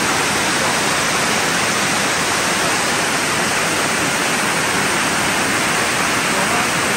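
Waterfall: a steady, even rush of water falling onto rocks.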